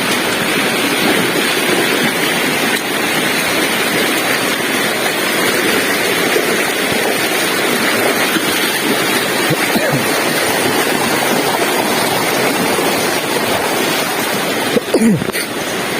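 Steady, loud rush of a waterfall close by, even throughout, with a brief knock near the end.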